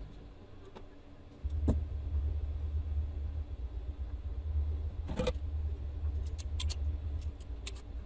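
A few short clicks and snaps from a hand wire stripper/crimper and small electrical wires being worked, the sharpest a little past the middle. Under them runs a low rumble that is absent for about the first second and a half, then comes in suddenly.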